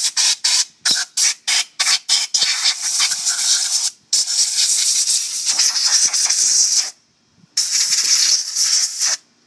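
Compressed-air blow gun hissing as it blows dust out of a scooter's CVT belt and variator area: first a quick run of about eight short bursts, then longer blasts lasting one to three seconds, with a brief stop between them.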